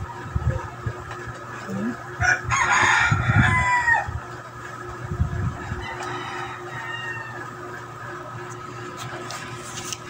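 A rooster crowing loudly about two seconds in, a call of roughly a second and a half ending in a falling note, followed by a fainter crow a few seconds later.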